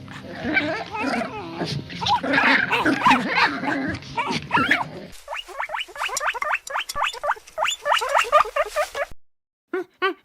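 Animal calls: a dense overlapping chorus of squeals and whines for about five seconds, then an abrupt change to a fast series of short, rising, yelp-like calls, about five a second, that cuts off near the end.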